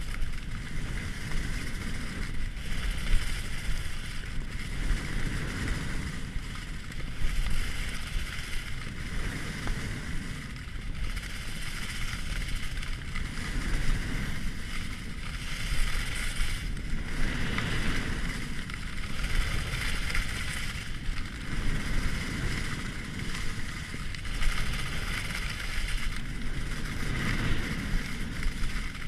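Skis hissing and scraping over snow on a fast downhill run, swelling and fading with each turn, over a steady low rush of wind on the microphone.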